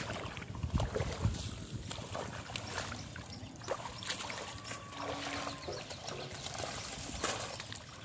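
Shallow water sloshing and splashing with irregular rustles as hands grope through mud and water hyacinth for fish. A brief low rumble about a second in.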